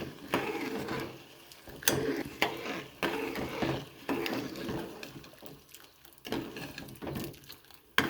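A utensil clinking and scraping now and then against a pan of jaggery melting in hot water, with scattered sharp clicks over a softer clatter.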